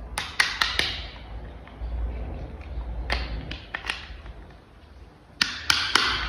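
Hard plastic toy parts clicking and tapping as they are handled and fitted together: four quick clicks at the start, a few more in the middle, and three louder clicks near the end.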